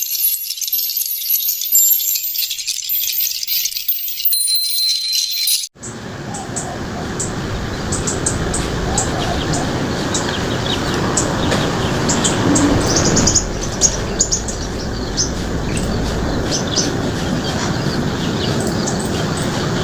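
High-pitched tinkling and chirping for about six seconds, then an abrupt cut to a steady rushing background with many short, high bird chirps and tweets scattered over it.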